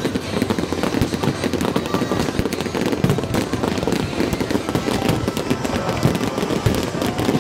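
Fireworks display in full barrage: a dense, unbroken stream of crackling pops and bangs from shells bursting overhead.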